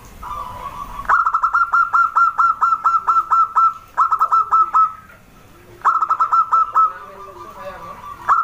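Zebra dove (perkutut) singing: bursts of rapid staccato cooing notes, about seven a second, separated by short pauses and drawn-out notes. A fainter, lower coo repeats underneath.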